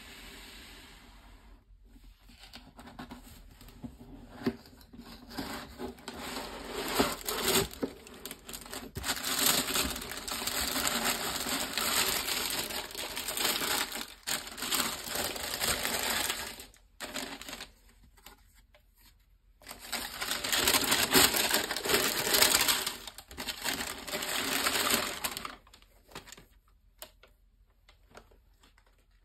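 Tissue paper crinkling and rustling as gloved hands fold it back inside a cardboard shoebox, in long loud stretches with quieter gaps between. The box and the sneaker are handled in between.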